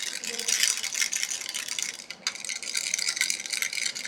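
Giraffe baby rattle toy shaken continuously, a dense rapid clatter of beads, with a brief pause about halfway through.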